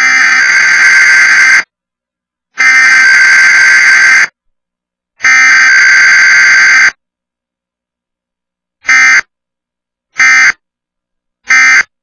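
Emergency Alert System digital data bursts for a Required Weekly Test: the header sent three times as bursts of about a second and a half, each a second apart, then three short end-of-message bursts near the end. There is no attention tone and no spoken message between them.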